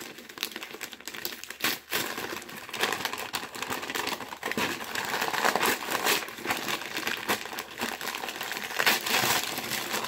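Wrapping paper crinkling and tearing as a gift-wrapped box is opened by hand: a continuous run of crackles and rustles that gets busier about two seconds in.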